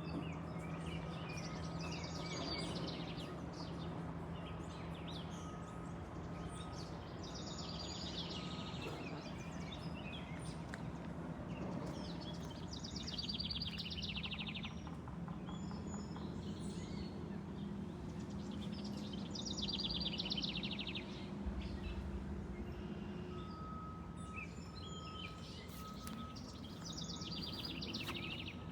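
A songbird singing a short phrase of rapid, trilled notes, repeated every five or six seconds, over a steady low background hum.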